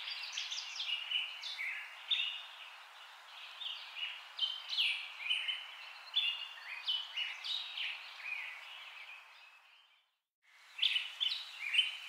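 Many small birds chirping at once in quick, overlapping notes over a steady hiss. The chirping fades out shortly before ten seconds in, stops for about half a second, and starts up again.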